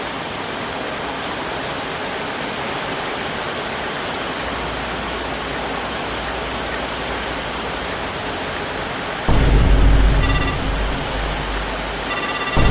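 Steady heavy rain, an even hiss. About nine seconds in, a loud music track with deep bass cuts in over it, with two short bursts of bright ringing tones near the end.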